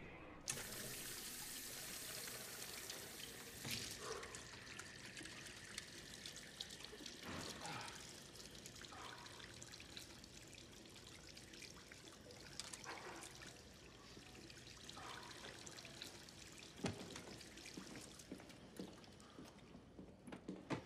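Water running from a tap into a restroom sink, a steady hiss that starts about half a second in, with a few soft knocks and clatters.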